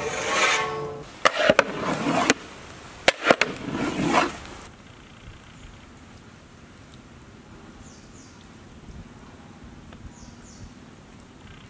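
A large metal lid sliding onto a big cooking pot with a falling metallic squeal, then several sharp metal clanks over the next few seconds. After about five seconds the sound drops to quiet outdoor background with a few faint high chirps.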